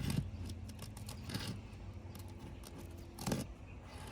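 Roof snake scraping and crackling under asphalt shingles as they are pried up to inspect the sealant line, in a few short scrapes, the sharpest near the end.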